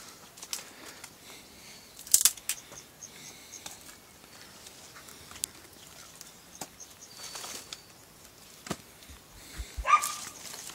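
Scattered rustling and clicking of a phone camera being handled and moved, with a sharp rustle about two seconds in and a burst of rustling with a few low thumps near the end.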